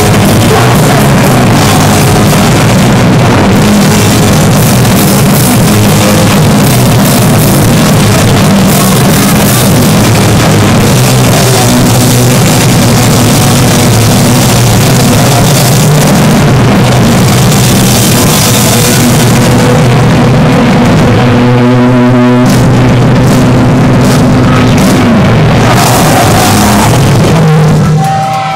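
Heavy metal band playing live, with distorted electric guitar, bass and drums. The recording is very loud and overdriven. The music stops just before the end.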